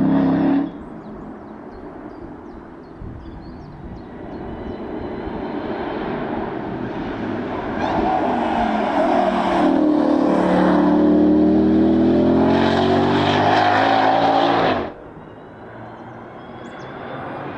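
Ford Mustang GTD's supercharged V8 at racing speed on track. A loud pass cuts off abruptly under a second in, then the engine note grows louder as the car approaches, its pitch dipping and rising with the revs while it passes close, and cuts off suddenly near the end.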